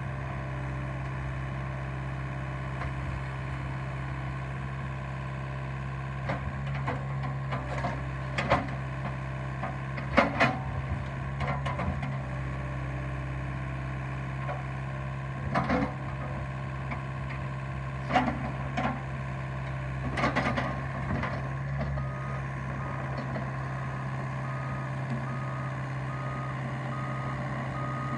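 Bobcat E85 excavator's diesel engine running steadily while the bucket digs into and drops gravel, with several loud crunches and clatters of stone. About 22 seconds in, a travel alarm starts beeping about once a second as the machine moves on its tracks.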